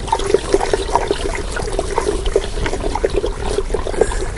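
Water sloshing and splashing in quick, irregular strokes as about five litres of water is stirred to dissolve a seed-treatment powder.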